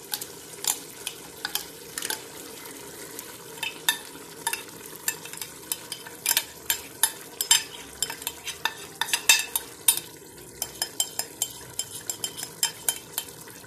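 Irregular sharp clicks and scrapes of a spoon working yogurt out of a plastic tub into an aluminium pressure-cooker pot, over a steady low sizzle of meat frying in the pot.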